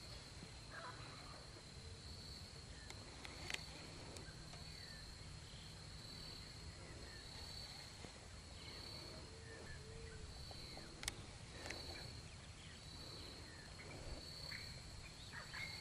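Quiet natural ambience at the water: a steady high insect trill that swells and fades, with scattered faint bird chirps and a couple of small knocks.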